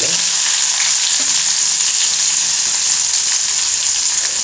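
Chopped onions dropped into hot oil in a pan, frying with a loud, steady sizzle that starts suddenly.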